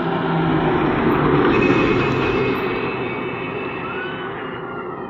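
Bus passing close by: engine and tyre noise swelling to a peak about two seconds in, then fading as it moves away.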